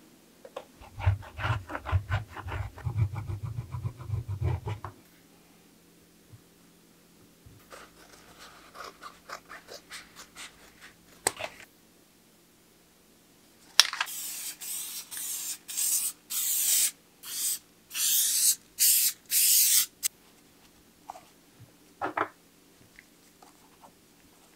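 Aerosol spray adhesive hissing from the can in about nine short bursts over some six seconds. Earlier, a rapid rasping rip as the old cover is pulled off a bicycle saddle shell.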